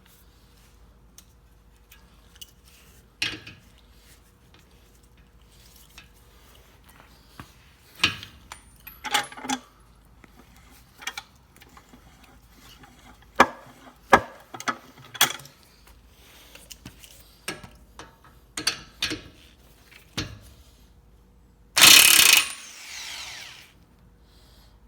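Hand tools working on suspension bolts: scattered metallic clicks, knocks and ratcheting at irregular intervals. Near the end comes a loud rasping burst about a second long that trails off.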